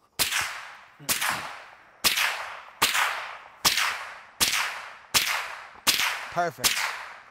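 An AR-15-style rifle fired semi-automatically: nine single shots at an even pace of about one every 0.8 seconds, each trailing off in an echo.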